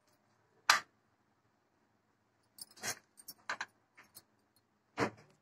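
Four or five light clicks and taps, spread out with quiet between, from hands at work over an appe pan as potato tikkis are set into its batter-filled cups.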